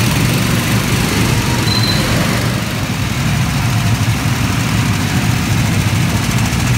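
Small single-cylinder petrol engines of rental go-karts idling together, a steady low drone.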